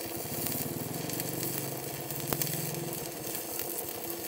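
Stick-welding arc from an Arc200 welder burning a 2.6 mm electrode at 72 amps: a steady sizzling crackle with an occasional sharp pop, the sound of a stable, smoothly running arc.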